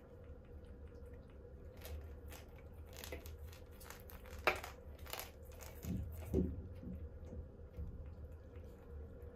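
Faint taps and scratches of kittens' paws and claws on a cat tree's clear plastic bowl bed and carpeted perch as they play, with one sharp click about four and a half seconds in and two soft thumps about a second later, over a steady low hum.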